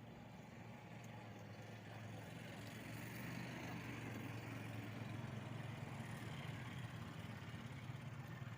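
A motor engine running steadily in the background, a low hum that grows a little louder over the first few seconds and then holds.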